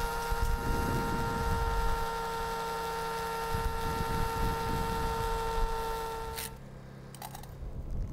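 Corded electric drill with a mixing paddle running at steady speed, a constant motor whine over a churning rumble, as it stirs a bucket of pavement coating before the catalyst is added. The drill stops about six and a half seconds in.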